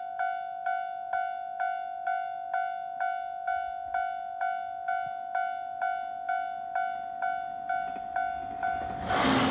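Japanese level-crossing warning bell ringing, an electronic chime struck evenly about twice a second. Near the end, a JR East 701-series electric train reaches the crossing with a loud rush of noise that drowns the bell.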